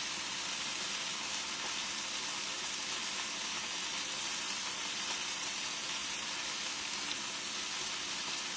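Chicken wings frying in a pan, a steady sizzle.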